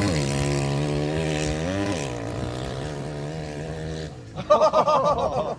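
A vehicle engine running steadily, its pitch dipping briefly about two seconds in, then a louder, wavering, pitch-bending sound near the end.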